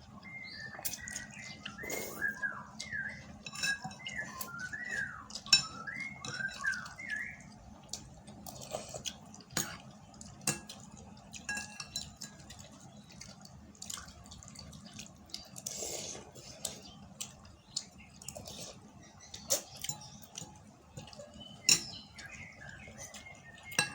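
Eating utensils clicking and clinking against a bowl in scattered sharp taps. A small bird chirps a quick run of notes for the first several seconds and again near the end.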